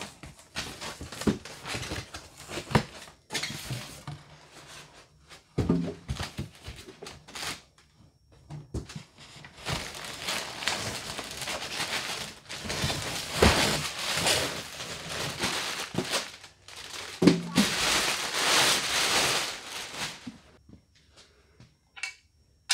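Packaging rustling and crinkling as a hydraulic lift power unit is unpacked from its cardboard shipping box and wrapping, in irregular bursts with a few knocks.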